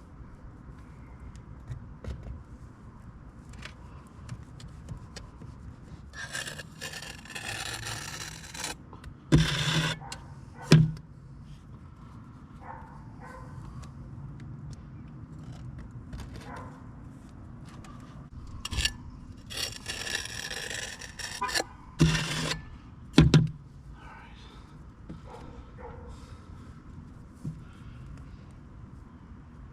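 Masonry work on brick and mortar: two spells of scraping a few seconds long, with several sharp knocks, the loudest just after each spell.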